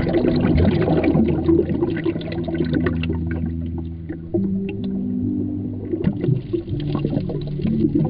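Shallow seawater heard through an underwater camera: a muffled wash with many small clicks and crackles. Low held music notes change underneath.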